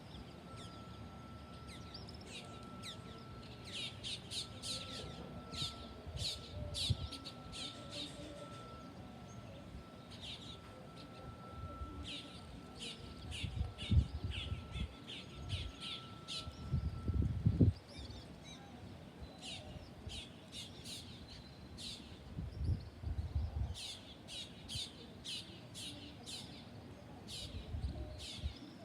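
Birds chirping and squawking in repeated quick runs of calls. A steady thin high tone runs under them and stops about two-thirds of the way through, and there are a few short low rumbling bursts near the middle.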